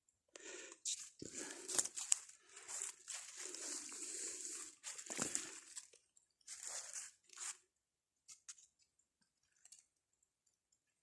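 Crunching and rustling in a run of bursts for about seven seconds, then a few faint clicks.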